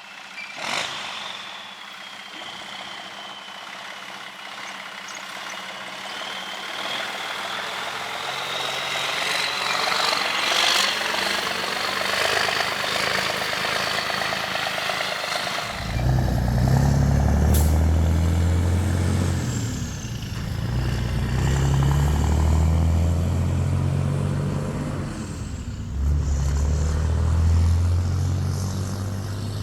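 A high whine slowly rising in pitch, then from about halfway a heavy vehicle engine running loud and low, its pitch dipping and climbing again several times as it works.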